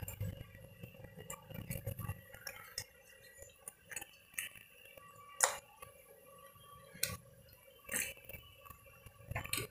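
Scattered light clinks and knocks from a steel saucepan as elephant foot yam pieces in parboiling water are stirred by hand, about half a dozen at irregular moments. A faint low rumble runs under the first two seconds.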